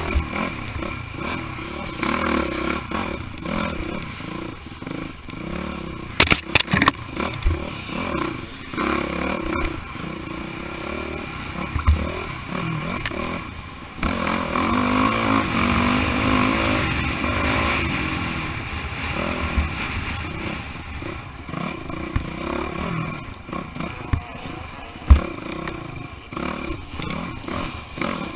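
Dirt bike engine being ridden hard over a rough trail, its revs rising and falling, with sharp knocks and rattles from bumps. About halfway through it gets louder and steadier.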